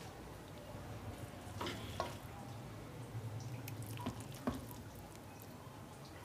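A few soft taps and scrapes of a spatula spooning carrot halwa onto a glass serving plate, over a faint low hum.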